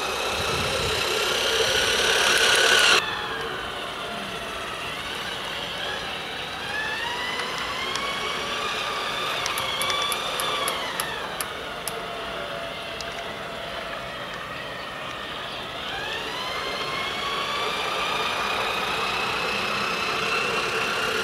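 The small electric motor of a Playmobil RC freight locomotive (set 5258) whines as the train runs along plastic track. Its pitch rises and falls slowly as the speed changes. The sound is louder for the first three seconds and then drops suddenly to a quieter whine, with a short run of light ticks in the middle.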